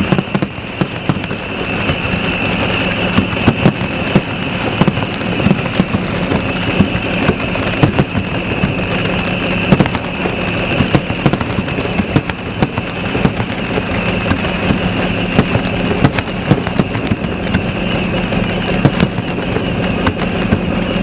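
Aerial fireworks going off in a dense, continuous barrage: many sharp bangs and crackling pops at irregular intervals over a steady rumble.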